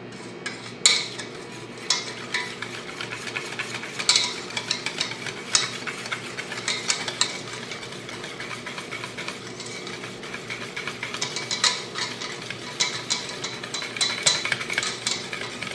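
Wire whisk beating thick gram-flour (besan) batter in a bowl, with frequent irregular clinks of the wires against the bowl's side. The water is being whisked in to give a smooth, lump-free batter.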